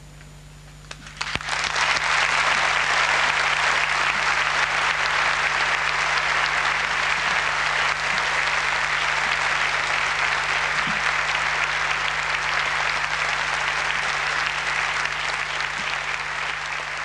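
Concert audience applauding, breaking out about a second in and going on steadily, over a low steady hum from the old recording.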